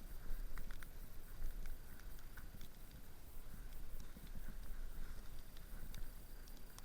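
Footsteps in snow at a steady walking pace, about one step a second, over a low rumble of wind on the microphone.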